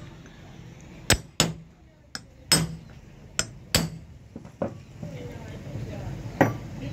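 About eight separate hammer strikes, unevenly spaced, on a steel pipe drift, each a sharp knock with a short ring. They drive a new 6004 ball bearing down into the AC compressor's belt-tensioner pulley held in a bench vise.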